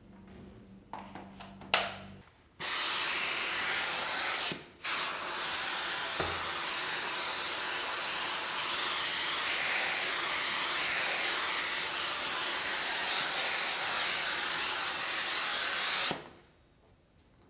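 Handheld steam cleaner jetting steam through its microfibre-covered hand tool with a steady hiss, after a few clicks. The hiss breaks off briefly about two seconds after it starts, then runs on until it cuts off sharply near the end.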